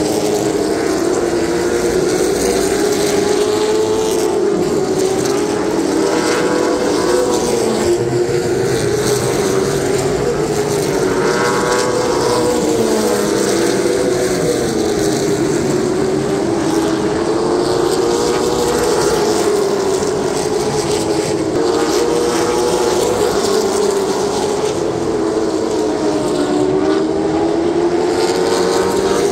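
Field of Late Model stock cars' V8 engines running at racing speed around a short oval, a steady loud drone whose pitch rises and falls every few seconds as the cars go around.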